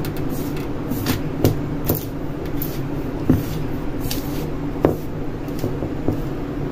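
A hand rubbing and mixing flour with oil and salt in a metal bowl: irregular soft scrapes and a handful of short knocks as the hand brushes the bowl, over a steady low hum.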